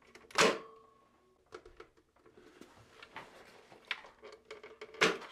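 Plastic outer case of a Synology DS920+ NAS snapping loose with a sharp click about half a second in, followed by faint scraping and small ticks as it is pushed, and another sharp knock near the end.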